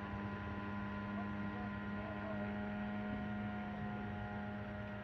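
Radio-controlled scale model of a J2M Raiden fighter flying overhead, its motor giving a steady droning hum that swells slightly in the middle.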